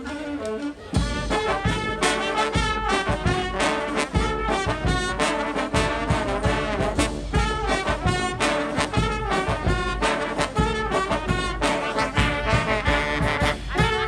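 Brass street band playing an up-tempo tune, with trombones, trumpets and saxophones. A lighter horn line gives way about a second in to the full band coming in loudly, over a steady beat.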